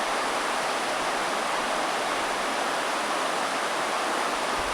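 Shallow river water rushing steadily over rocks, an even, unbroken rush.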